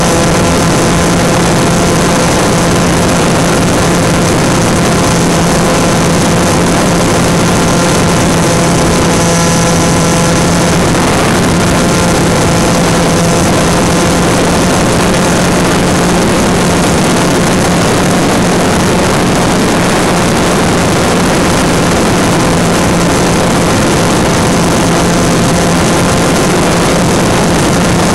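Turnigy Park 250 brushless outboard-style electric motor spinning a 5x4.3 propeller on a small flying wing, heard close up from the plane's own camera: a steady hum at an even throttle with a loud rush of air over it.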